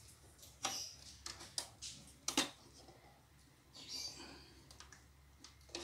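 Power cord being plugged into the socket at the back of an Epson L3110 printer: a string of light clicks and knocks of the plug and hands against the plastic casing, then a short rustle about four seconds in.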